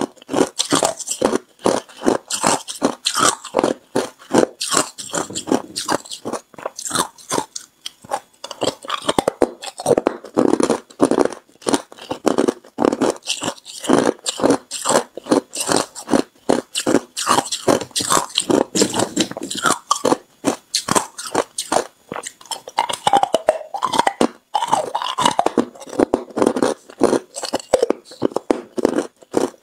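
Crushed ice being chewed, a quick run of loud, crisp crunches several times a second, picked up close by a clip-on microphone.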